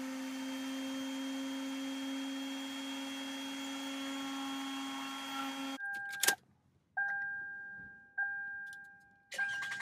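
3D Pro high-security key-cutting machine running steadily as it cuts a new Lexus key, stopping abruptly about six seconds in. Then a few clicks and a short electronic chime repeating about once a second, each ring dying away.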